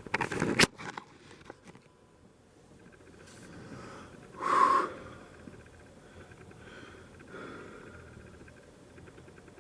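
A person's breathing: a hard, noisy exhale about four and a half seconds in and a fainter breath near the end. Before it come rustling and a sharp click.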